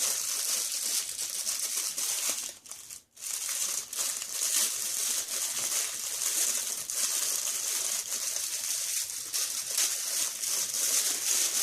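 Packaging crinkling and rustling as a puzzle is unwrapped, with a brief pause about three seconds in.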